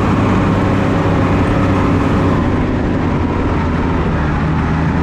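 A heavy engine running steadily at an even speed, with a rushing noise over it.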